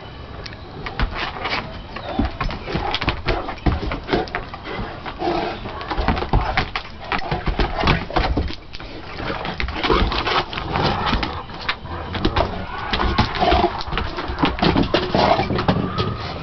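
Two English Mastiffs play-fighting, with growls and grunts mixed with many short knocks and scrapes of their paws and claws on the wooden deck boards.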